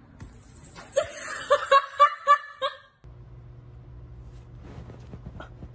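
A person laughing in a quick run of about six short, high-pitched bursts, which stops abruptly near the three-second mark and gives way to a quiet, steady low hum.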